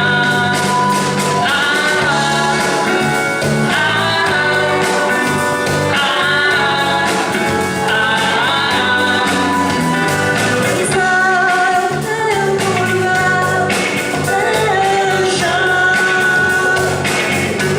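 A song with a lead voice singing over guitar, bass and drums, at a steady loud level.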